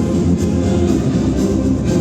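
Show soundtrack music played loud over a public-address system: sustained instrumental notes with a steady low pulse.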